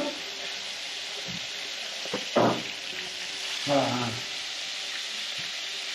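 Fish pieces frying in hot oil in a pan, with a steady sizzle.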